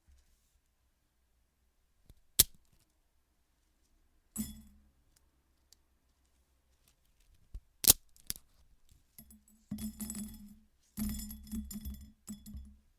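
Hard dry noodles snapped by hand in a few sharp, separate cracks. Then, in two spells near the end, the broken pieces are poured into a bowl with a rattling clatter that sounded like marbles.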